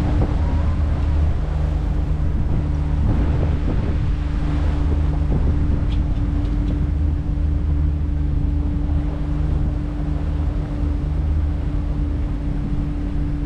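Small boat's engine running steadily under way, a constant low drone, with wind buffeting the microphone.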